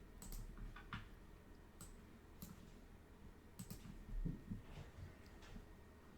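Faint, irregular clicks of a computer mouse and keyboard, about eight over six seconds, with a soft knock a little past four seconds in.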